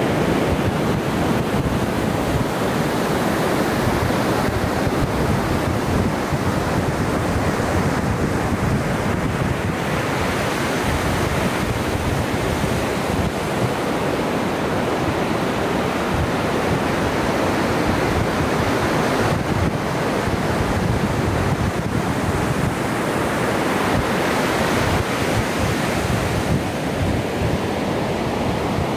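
Ocean surf breaking and washing up the beach: a continuous rush of water that swells and eases as the waves come in.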